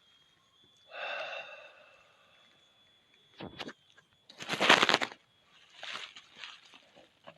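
Bursts of crackling, rustling noise, the loudest about four and a half seconds in and smaller ones around six seconds. A brief pitched sound comes about a second in.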